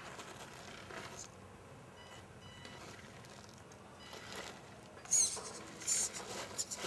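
Tamiya CR-01 Unimog radio-controlled crawler working slowly across stone slabs, its small motor and drivetrain whirring faintly. There are two sharp, high-pitched squeaks about five and six seconds in.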